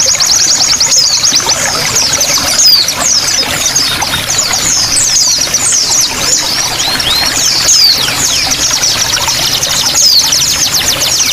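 Dense chorus of small songbirds: rapid high chirps, trills and quick falling whistles, nearly unbroken, over steadily trickling water.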